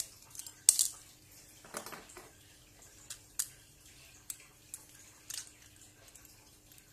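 Scattered clicks and light taps of a disassembled Samsung Galaxy A8 (2018) and its parts being handled: plastic frame, circuit board and tweezers knocking against each other and the bench. The loudest is a sharp double click about a second in, followed by half a dozen smaller ones.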